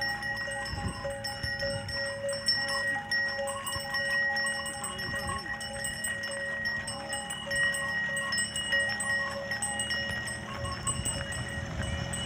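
Many bells worn by a walking herd of cattle, ringing and clinking continuously at several different pitches, with overlapping tones that sustain.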